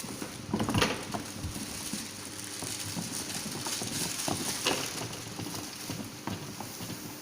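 Irregular knocks and clicks from containers and ingredients being handled while mixing a batch of dishwashing liquid. A louder cluster of knocks comes about half a second in, and a few sharp clicks come around four and a half seconds in.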